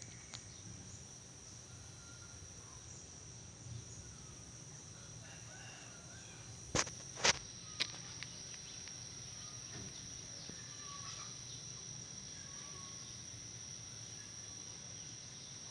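Insects calling with a steady, high-pitched trill. A little past the middle come three sharp clicks about half a second apart, louder than the trill.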